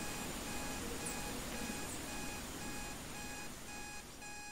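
Digital countdown timer's electronic alarm beeping at about two beeps a second, signalling that the timer has run out to zero. Steady rain sound runs underneath and fades a little near the end.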